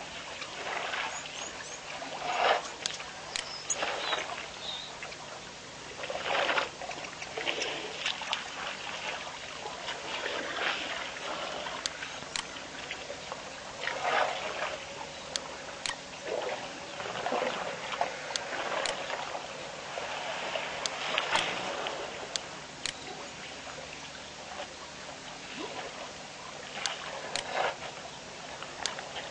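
Water splashing and trickling at a waterhole, in irregular splashes and sloshes every second or two, with a few sharp ticks.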